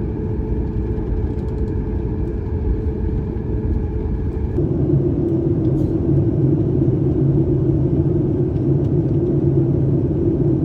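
Steady low rumble of a moving vehicle, heard from inside, with a constant hum that shifts to a lower, stronger tone about four and a half seconds in. It cuts off suddenly at the end.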